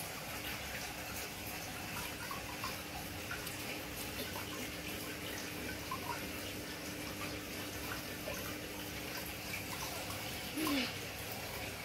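Steady splashing and trickling of water circulating in a home goldfish aquarium, with a faint steady hum that stops about ten seconds in. Near the end comes a brief, louder sound that falls in pitch.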